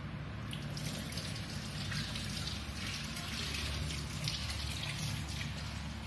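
Steady hiss of noise that grows brighter about half a second in, over a low steady hum.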